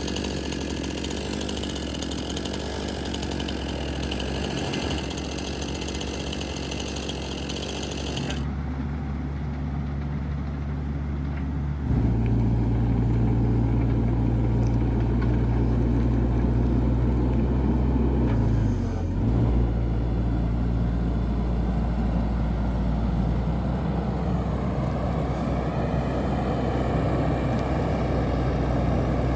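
Excavator's diesel engine running steadily, getting louder about twelve seconds in, with a brief drop in pitch around nineteen seconds.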